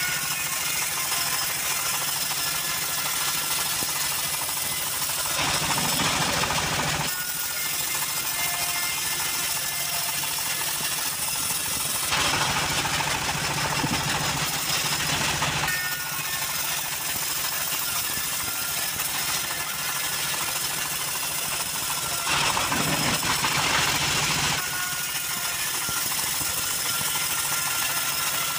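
Homemade band saw's engine running steadily, with louder hissing stretches as the blade rips lengthwise through timber planks, three times, each for two to four seconds.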